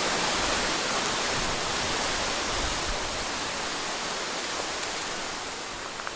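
Strong wind rushing through trees and vegetation: a steady hiss that eases slightly toward the end.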